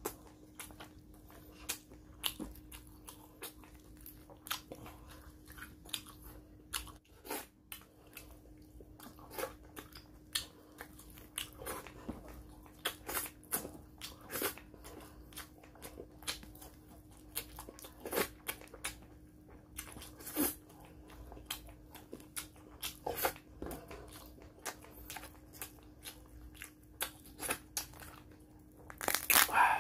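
Close-up eating sounds of fried fish and crab eaten by hand: irregular crunching, chewing and small cracking clicks, with a louder crunch near the end.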